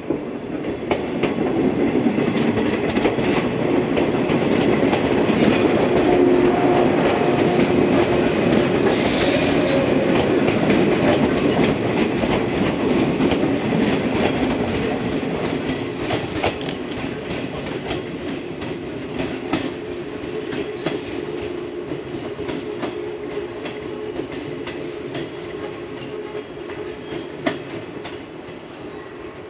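Yellow electric multiple-unit train passing close by and running away into the distance, its wheels clicking over rail joints. Loudest in the first half, then fading steadily.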